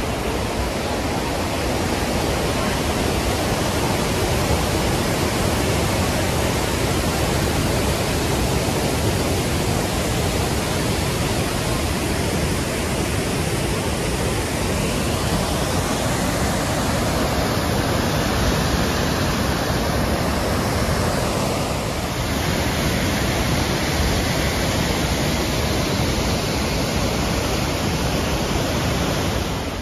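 Great Falls of the Passaic River, a large waterfall, rushing steadily with an even, unbroken roar of falling water.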